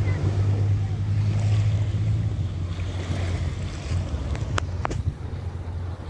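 Low rumble of wind buffeting the microphone over the wash of small waves in shallow seawater, with two sharp clicks about three-quarters of the way through.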